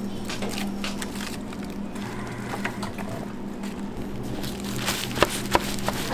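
Gloved hands handling dried laver (gim) sheets: plastic gloves and seaweed rustling and crinkling, with a few sharp clicks near the end, over a steady low hum of kitchen equipment.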